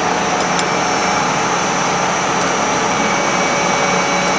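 Steady workshop background noise: an even rushing hiss with a low hum underneath, with a few faint ticks about half a second in.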